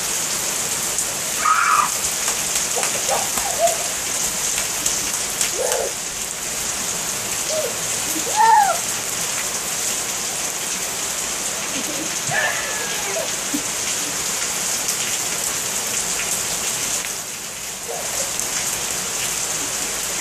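Heavy rain falling on wet pavement and a parked car, a steady hiss, with brief high voice sounds every few seconds.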